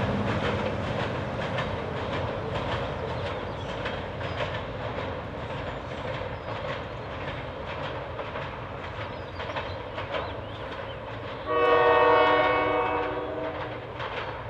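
A freight train rolling past, with steady wheel noise and repeated clicks and clacks of the cars over the rails. Near the end, a diesel locomotive horn sounds once, a chord lasting about two seconds and louder than the rolling cars.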